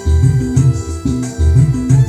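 Music played through a newly assembled OCL power amplifier, loud and dominated by heavy, pulsing bass notes.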